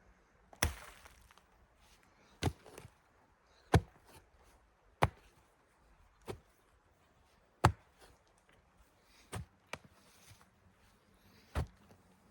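A hand digging tool chopping into the soil of a post hole, about nine sharp strikes roughly one every second and a half.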